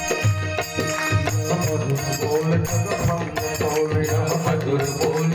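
Instrumental passage of Hindu devotional bhajan music: an electronic keyboard plays a sustained melody over a steady drum rhythm.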